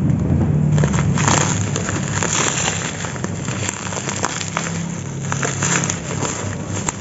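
Plastic packaging crinkling and rustling as the body chest strap is unwrapped, a dense run of crackles and small clicks, over a low steady hum.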